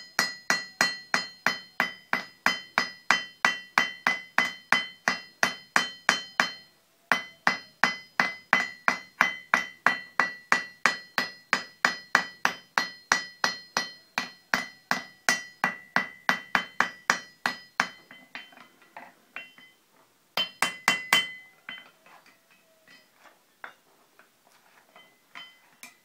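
Blacksmith's hand hammer striking hot steel on an anvil at about three blows a second, each blow ringing, as 3/8-inch rod is headed into rivets. The steady blows give way to lighter, scattered taps after about 18 seconds, with a quick burst of hard blows around 21 seconds.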